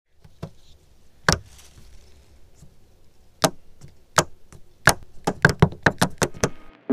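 The hinged rubber cover of a shore-power inlet on a bus's metal side is flicked by a finger and clacks against the inlet. There are a few sharp single clacks, then a quick run of about seven near the end.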